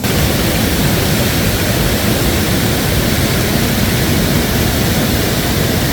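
Steady rushing noise of a fast-flowing river, loud and even throughout.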